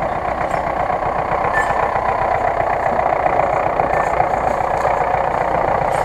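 GAZ-66 army truck's engine running steadily at low speed as the truck crawls down a muddy slope.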